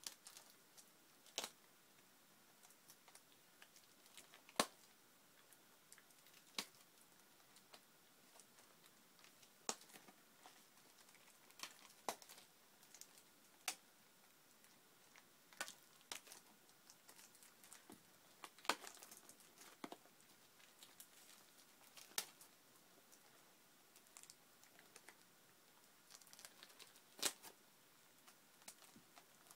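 Faint, irregular clicks and crinkling of wrapping as a sealed Pokémon card booster box is picked at and worked open by hand.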